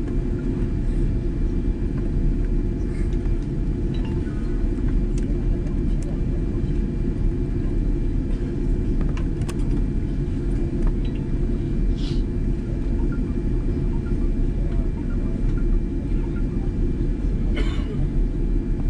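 Steady low cabin rumble of a Boeing 787-10 taxiing, heard from inside the cabin, with a faint steady hum over it and a few faint clicks.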